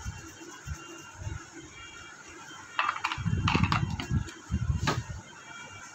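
Handling sounds: a toothbrush and a remote-control circuit board are knocked and set down on a cloth-covered workbench. They come as clicks and dull knocks in two clusters, about three seconds in and again near five seconds.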